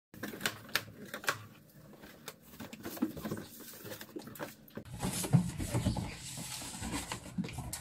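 Cardboard delivery boxes being handled and opened: scattered taps and clicks with scraping and rustling of cardboard, growing busier and louder about five seconds in.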